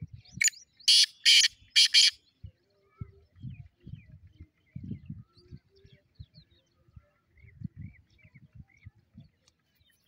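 Caged black francolin calling: four loud notes in quick succession in the first two seconds. Faint chirps of small birds and low thumps follow.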